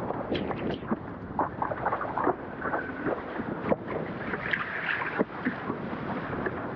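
A windsurf board running fast over choppy water: rushing water and spray with many short slaps of chop against the hull, and wind buffeting the microphone.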